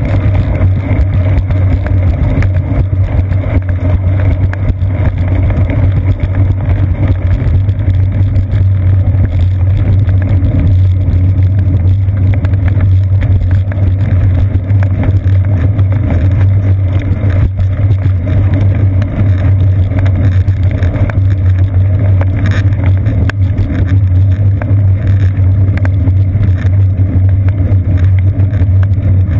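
Deep, steady rumble of a bicycle riding over wet pavement, picked up by a seat-post-mounted GoPro Hero 2: road and tyre vibration carried up the frame, mixed with wind, with a few faint knocks from bumps.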